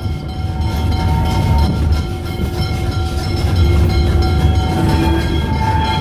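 Steam-hauled train rolling slowly, heard from beside the locomotive, class 86 tank engine 86 1333-3: a steady low rumble with several steady tones held above it.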